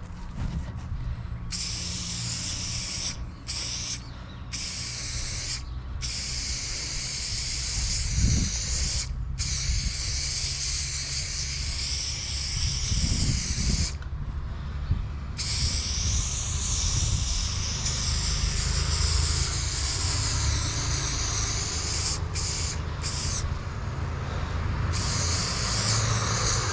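Aerosol spray-paint can spraying yellow paint onto a wall: a hiss that stops and restarts in short bursts as the nozzle is pressed and released between strokes, over a low steady rumble.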